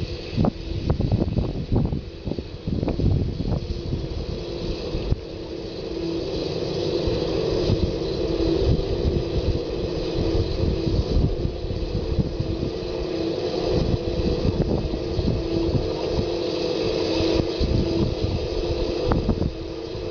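A large 1/4-scale radio-controlled King Tiger tank driving along, a steady mechanical whine from its drive over an irregular low rumble. The whine grows louder from about six seconds in as the tank comes closer.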